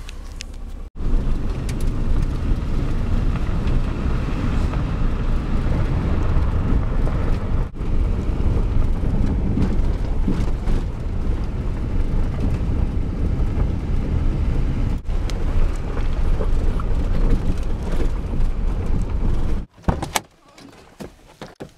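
Chevrolet Venture minivan driving over rough, grassy ground off-road, a steady low rumble of engine and tyres. It breaks off briefly twice and stops abruptly near the end.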